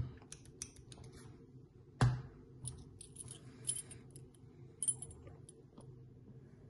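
Brass padlock and the keys on its keyring being handled: scattered small metallic clicks and jingles, with one louder knock about two seconds in as the shackle is closed.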